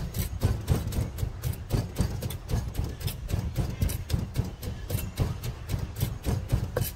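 Wooden pestle pounding papaya salad in a clay mortar: a steady run of dull knocks, about three strokes a second.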